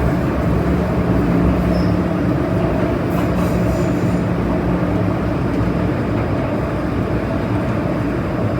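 Metro-Cammell M-Train electric multiple unit running between stations, heard from on board: a steady rumble of wheels on rail with a low motor hum that weakens near the end.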